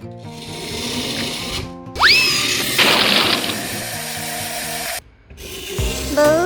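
Background music for a children's cartoon, overlaid with sound effects: a quick rising whistle about two seconds in, followed by a loud burst of noise. Near the end come rising pitched tones.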